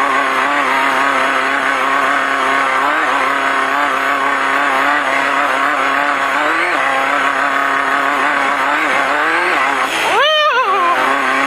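Off-road race car engine running hard at steady high revs, heard from inside the car. About ten seconds in, the revs flare sharply up and drop straight back.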